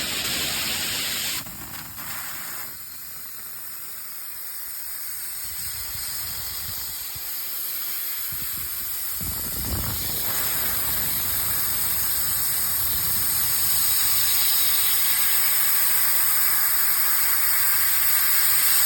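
2000-watt fiber laser cutting 1/4-inch aluminum: a steady hiss of assist gas blasting through the cutting head and kerf. It shifts in level in the first few seconds, builds gradually, and cuts off suddenly at the end as the cut finishes.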